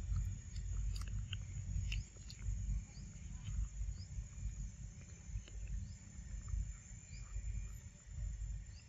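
Young macaques eating papaya, with faint wet chewing and smacking clicks over a low, uneven rumble. A steady high insect drone runs underneath, and short high chirps come about once a second.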